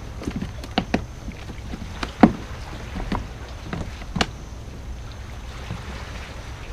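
Small fishing boat at sea: a steady low wind-and-hull rumble with a handful of sharp knocks, the loudest about two seconds in, and none after about four seconds.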